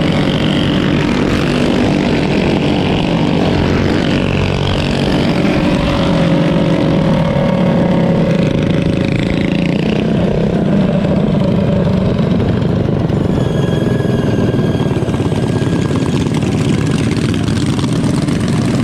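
Several small mini bike engines running together as a group rides, their pitches rising and falling as riders rev and ease off, over a heavy low rumble.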